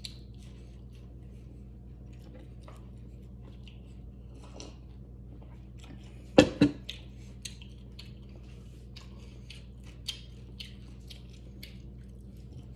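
A person chewing food, with a steady patter of small wet mouth clicks. A short, loud burst of voice comes about six seconds in.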